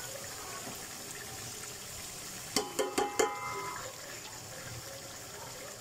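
Chicken and sliced onions sizzling in hot ghee in an aluminium pot, a steady hiss. About two and a half seconds in, a few quick metallic clinks of a spoon on the pot as ginger-garlic paste is put in.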